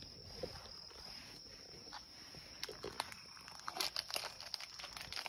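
Faint crinkling and scattered light clicks of something being handled, starting about two and a half seconds in, over a faint steady high whine.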